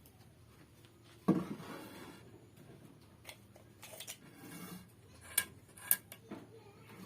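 Handling noises rather than a running saw: a knock about a second in, followed briefly by a rubbing sound, then scattered sharp clicks and taps.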